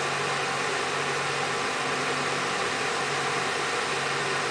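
Steady drone of running machinery: an even rushing noise over a low, constant hum, with no change in speed.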